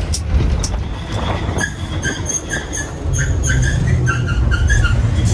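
Inside a moving bus: a steady low engine rumble with rattling, and from about a second and a half in, a run of short high-pitched chirps repeating at the same few pitches.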